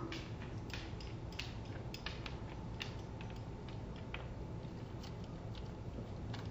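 A dog going at food on a hard floor: irregular light clicks and taps, several a second, over a steady low background hum.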